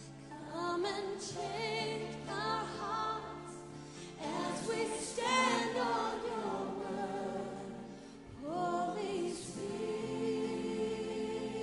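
Voices singing a Christian worship song over a steady held instrumental accompaniment, the sung notes wavering with vibrato.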